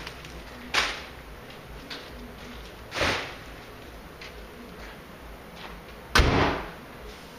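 Three short, sudden thuds, about a second in, at three seconds and at six seconds, the last the loudest.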